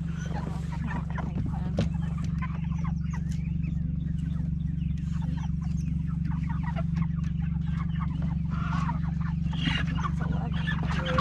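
Meat chickens squawking and clucking as they are caught and loaded into plastic poultry crates, with scattered knocks from the crates. A steady low hum runs underneath.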